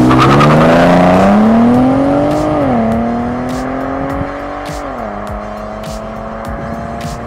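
Ford Taurus's EcoBoost V6 accelerating hard away, its pitch climbing through the gears with two upshifts, about three and five seconds in, then holding steady as the car pulls off and grows fainter.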